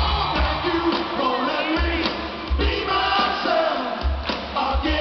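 Live rock band playing with a singer, recorded from within the audience; deep thumps come and go beneath the voice.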